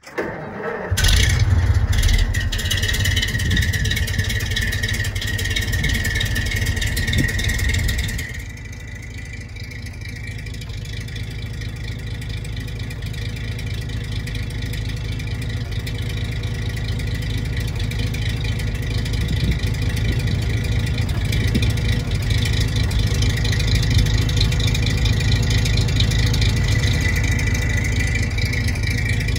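1945 Mack NO 7.5-ton prime mover's gasoline straight-six engine running as the truck drives: a steady low rumble with a high whine over it. The sound drops sharply about eight seconds in, then slowly builds again.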